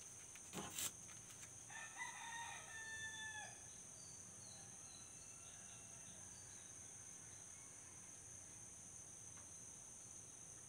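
A rooster crowing once, about two seconds in, followed by a fainter second crow. A short knock comes just before, under a second in.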